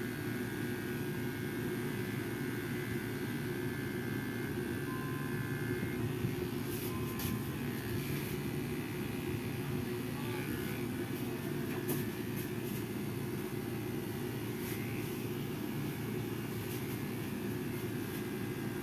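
Electric hair clippers running with a steady buzz while trimming the hair around the ear, with a few light clicks in the middle.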